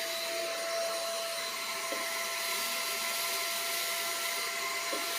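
Brigii battery-powered handheld mini vacuum cleaner running steadily, a high-pitched motor whine over an airy hiss as it sucks up sand, with a couple of faint ticks.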